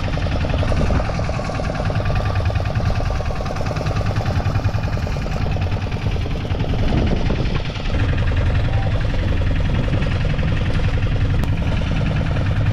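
Small outboard motor on a fishing boat running steadily, with a fast, even pulsing.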